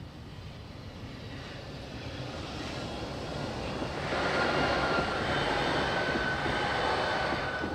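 Glattalbahn low-floor electric tram approaching and passing close by over a level crossing: rolling noise that builds for a few seconds, then a loud pass with a high steady whine, falling away suddenly right at the end.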